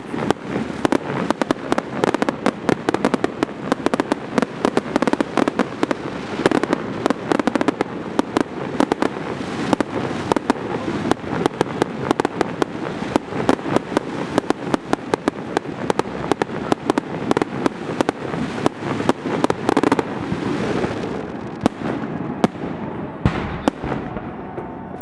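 Aerial fireworks display: a dense, rapid barrage of many bangs a second, which thins out to a few scattered bangs over the last few seconds.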